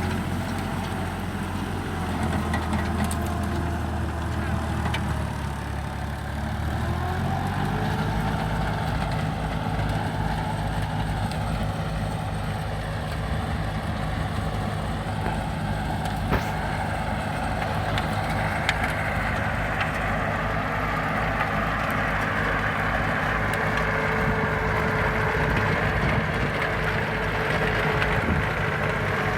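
Engine of a motorised rotary tiller running steadily, speeding up about seven seconds in and then holding the higher speed while working the soil.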